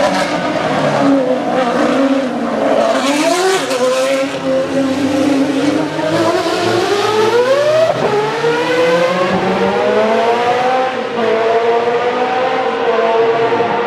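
Formula 1 car engine running at high revs on a street circuit. Its pitch climbs twice, about three seconds in and again from about six to eight seconds, then holds high and steady.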